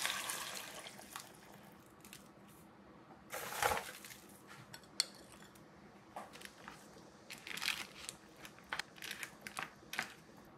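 The sizzle of frying fades out near the start, then scattered light clicks and clatters of dishes and utensils, with a sharp click about five seconds in and a cluster of small knocks near the end.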